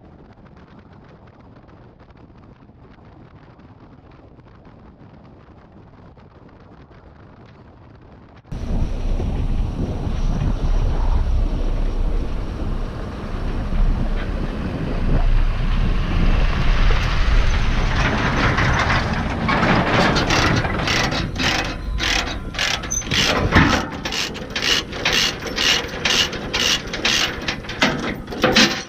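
A low hum, then machinery starting up abruptly about eight seconds in with a deep rumble, joined later by an even mechanical clacking, about two clicks a second.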